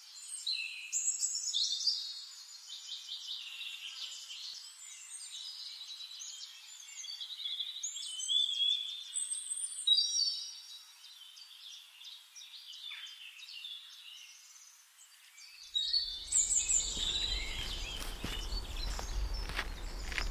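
Woodland birdsong: many birds chirping and trilling in high, quick phrases. About three-quarters of the way through, a fuller outdoor ambience with a low rumble comes in under the birds.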